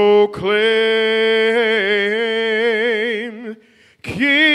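A man singing a slow hymn unaccompanied into a microphone, holding one long note with vibrato, then pausing for a breath and starting the next note near the end.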